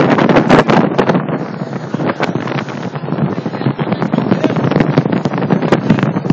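Wind buffeting the phone's microphone on a speeding motorboat, in rough, crackling gusts, over the rush of the boat's engine and water.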